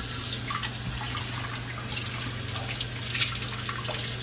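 Water running from a tap into a sink, with small knocks, drips and splashes of something being handled under the stream, over a steady low hum.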